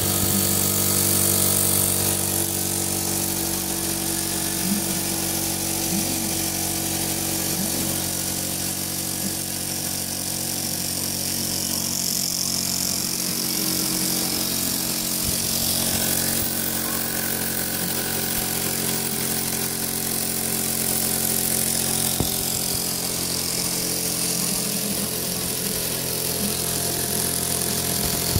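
Old Mamod toy steam traction engine running steadily, belt-driving a Meccano model threshing machine: an even mechanical whirr from the engine, belt and gears, with a high hiss over it.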